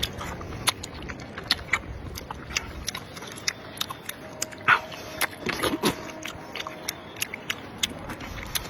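Close-up eating sounds of a person chewing soft, springy sweet-potato noodle sheets: a run of small irregular wet clicks and smacks, with one louder smack about halfway through.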